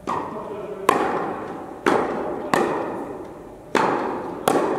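Tennis ball being struck by rackets and bouncing on the court during a rally. There are six sharp pops about a second apart, each ringing on in the echo of the large indoor tennis hall.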